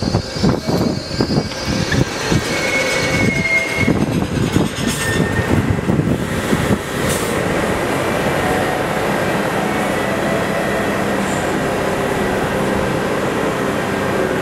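Budd Universal Transit Vehicle subway train moving along the platform, its wheels clattering unevenly over the rails with a brief high squeal about three seconds in. From about seven seconds in the clatter gives way to a steady hum of a subway train standing at the platform.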